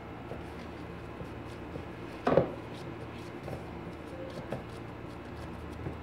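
Light kitchen handling sounds of a mixing bowl and dough being worked by plastic-gloved hands: a short knock a little over two seconds in, and scattered light clicks over a steady low hum.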